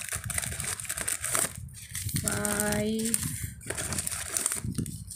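Crinkling plastic snack wrappers of small individually packed cookie packets being handled and shuffled, with a brief steady hum lasting under a second about two seconds in.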